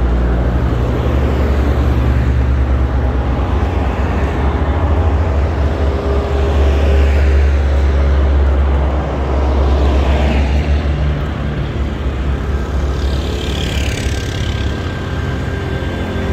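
Road traffic on a city street: cars and vans passing one after another, each swelling and fading as it goes by, over a steady low rumble.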